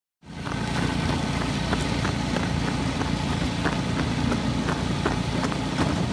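After a brief silence, a motor runs steadily as a boat travels across lake ice, with light clicks scattered over it.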